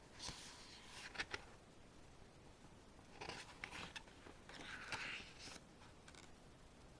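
Faint paper rustling in three short spells as the pages of a CD album's photobook are handled and turned, with a couple of light clicks about a second in.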